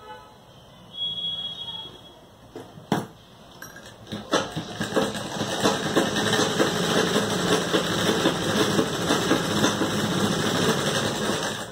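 Sewing machine running, stitching a seam through two layers of cotton fabric, with a fast even rattle that starts about four seconds in and stops just before the end. Before it, a brief high tone about a second in and a sharp click.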